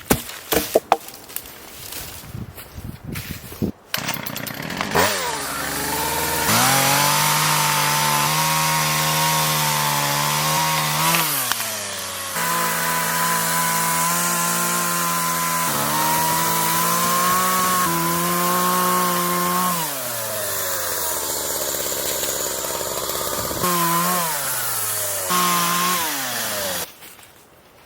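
Gas chainsaw running at high revs after some knocks and handling noise, its engine note sagging and picking up again several times, then cutting off suddenly near the end.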